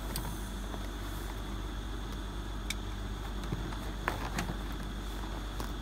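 A few faint knocks and scuffs from a cased harp on a wheeled dolly being handled and shifted, over a steady low rumble.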